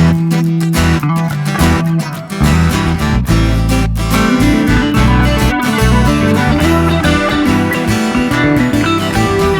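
Background music led by strummed guitar, over a steady bass line and beat.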